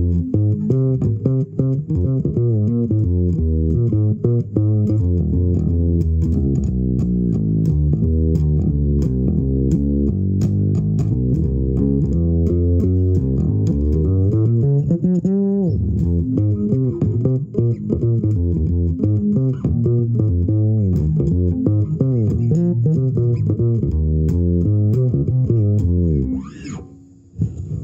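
Fretless electric bass played solo and fingerpicked: a flowing improvised line of low notes, some sliding in pitch, that stops near the end.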